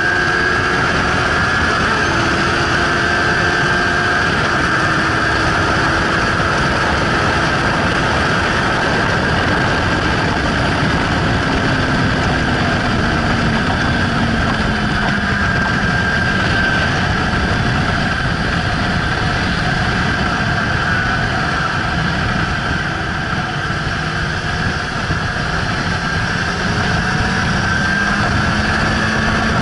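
Suzuki GSR600's inline-four engine running hard on a track lap, its pitch slowly rising and falling with the revs, under a steady rush of wind noise. The sound eases slightly about two thirds of the way through.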